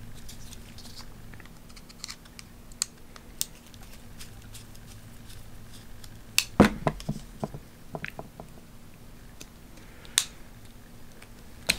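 Small clicks and taps of a Torx screwdriver and a Demko AD20.5 folding knife being handled while its handle screws are backed out. A quick cluster of sharper clicks comes about six and a half seconds in, and another single click about ten seconds in.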